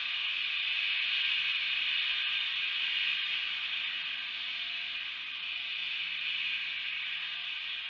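Steady hiss of steam venting from a K36 narrow-gauge steam locomotive, easing off slightly towards the end.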